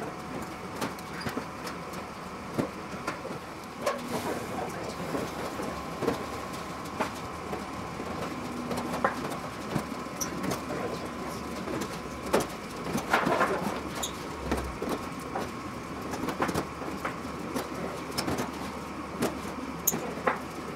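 Irregular metallic clicks and taps of clecos being pushed into an aluminium aircraft wing skin, over a faint steady tone.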